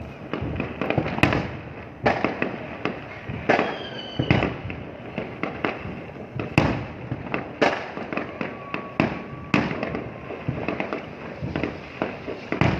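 New Year fireworks going off in a rapid, continuous barrage of bangs and crackles, with a brief whistle about three and a half seconds in.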